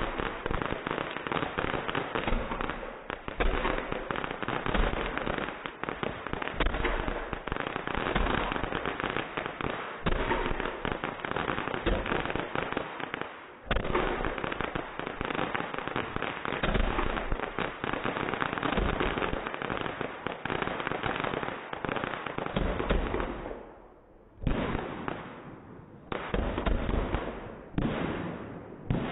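Fireworks going off in quick succession: a dense run of bangs and crackling that eases near the end into about four separate bangs, a second or two apart.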